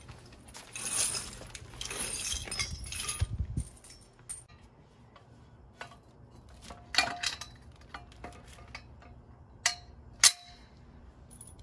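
Loose steel nuts, bolts and washers rattling and jingling, then a few sharp metal clinks as steel frame tubes and fasteners are handled and fitted during assembly. The loudest clink comes near the end and rings briefly.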